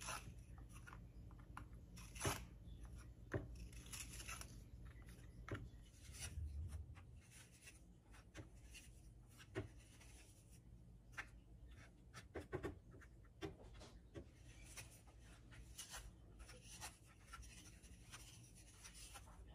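Faint, scattered clicks and soft rustles of Marie biscuits being handled and laid one at a time onto a layer of cream in a glass baking dish, with a few sharper taps now and then. A low hum underneath fades out partway through.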